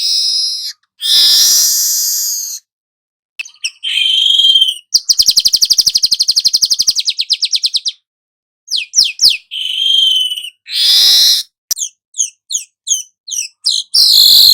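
Asian golden weaver song: a string of harsh buzzy notes, a fast rattling trill about five seconds in, and a run of short, quick chips near the end.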